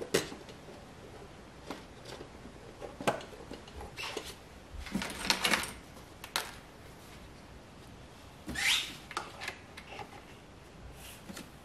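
Hands handling and fitting hard plastic engine-bay parts, the air cleaner housing and wiring connectors: scattered clicks and knocks with rubbing of plastic, including a cluster of clatter around the middle and a short rising squeaky scrape about nine seconds in.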